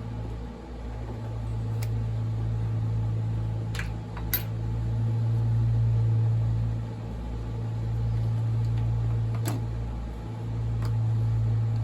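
Lawn mower engine running steadily, its hum swelling and fading as it moves back and forth. Over it come a few light clicks, about five scattered through, from tools and parts on the chainsaw being taken apart.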